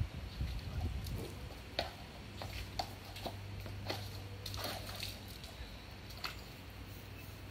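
Llama pawing at the water in a tub with a front foot, splashing and knocking against the tub in separate strokes about a second apart.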